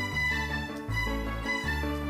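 Background music with a bouncy bass line and a light melody of held notes.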